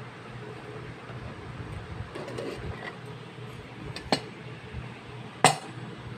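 Miniature stainless-steel pot and lid clinking twice as it is handled and set down on a counter, the second clink the louder, after some light handling noise.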